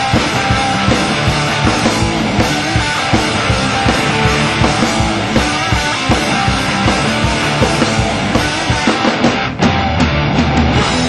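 Loud rock music with driving drums and electric guitar, with a brief break about nine and a half seconds in.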